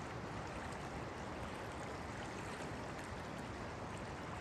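River water flowing past, a steady, even rush of moving water.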